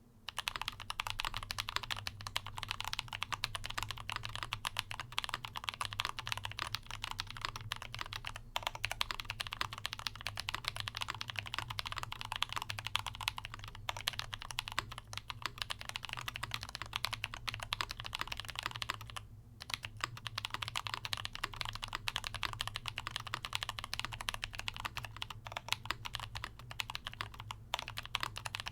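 Rapid, dense clicking with a few brief pauses, the longest about two-thirds of the way through, over a low steady hum.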